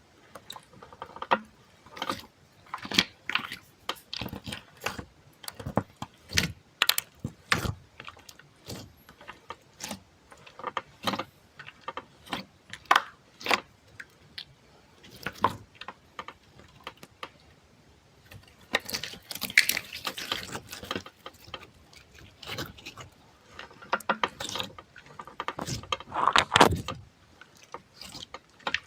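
Close-miked ASMR handling sounds: a run of irregular sharp clicks and taps, with two longer, noisier stretches of rustling about two-thirds of the way through and near the end.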